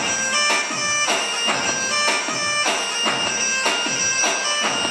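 Recorded Balkan folk dance music: a reedy wind instrument carries the melody over a steady drum beat of about two strokes a second.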